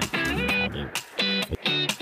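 Background music with guitar.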